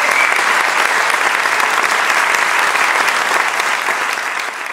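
Audience applauding, a dense, steady clatter of many hands clapping that begins to fade near the end.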